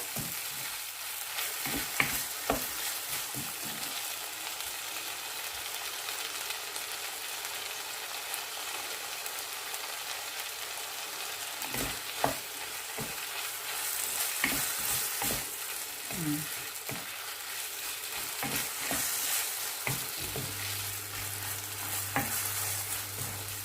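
Pork and tomatoes sizzling steadily in a frying pan while being stirred, with the spatula knocking and scraping against the pan now and then; the tomatoes are being cooked down until soft. A low hum comes in near the end.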